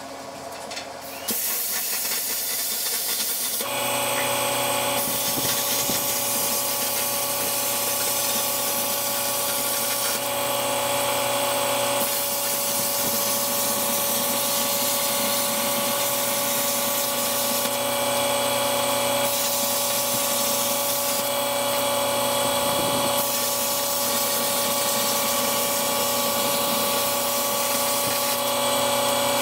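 Cutting torch cutting through the steel side of a front end loader bucket: a steady loud hiss with a steady hum under it, starting about a second in.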